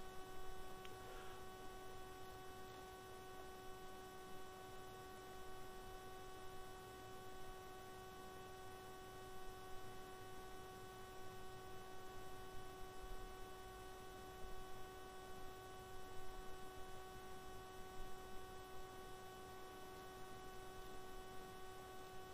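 Steady, faint electrical hum made of several whining tones over a soft hiss: the background noise of the recording chain, with no speech.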